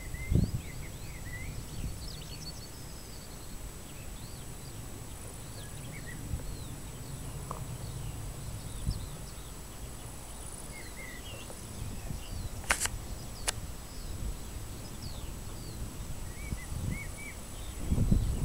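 Several small birds chirping in short, scattered calls over a steady low rumble of wind on the microphone. Two sharp clicks come about two-thirds of the way in, and louder low buffeting comes near the end.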